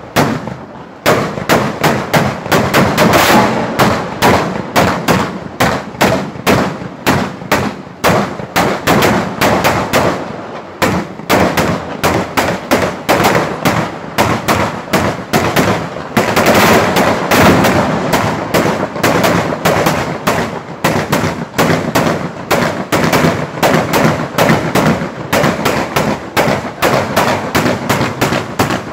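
Traditional Ligurian mortaletti, small black-powder mortar cups set in a row, fired one after another as they are lit in turn: a rapid, continuous string of sharp bangs, several a second, with brief lulls about a second in and around ten seconds in.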